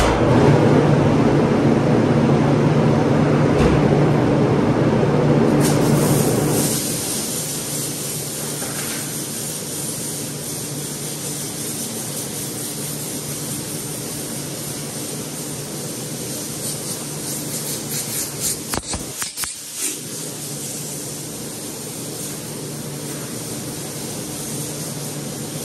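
Steady machine noise. A motor runs with a low hum for the first six seconds or so, then a continuous air hiss carries on, with a few short clicks about three-quarters of the way through.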